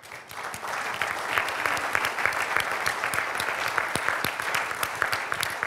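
Audience applauding, swelling over the first second and then carrying on steadily.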